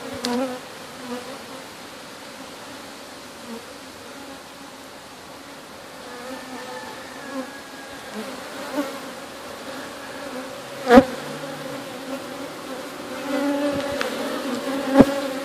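Honeybees buzzing in a steady hum from a small colony whose hive is being cut open, growing louder near the end. A sharp knock stands out about eleven seconds in, and another comes near the end.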